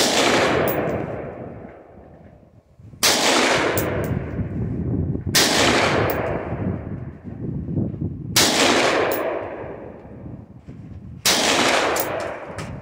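Retro Armalite rifle firing five single shots a few seconds apart, each shot followed by an echo that dies away over a second or two.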